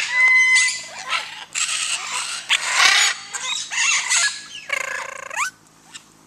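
Several parrots calling: harsh screeches and squawks, a steady whistled note at the start and rising whistles about five seconds in, then the calls stop shortly before the end.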